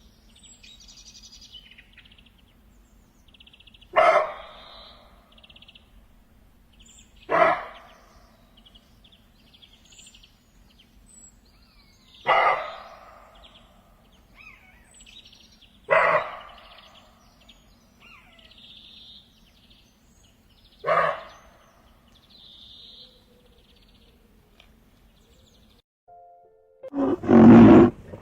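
An animal's calls: five short, loud calls spaced three to five seconds apart, over birds chirping steadily. A louder, deeper call starts near the end.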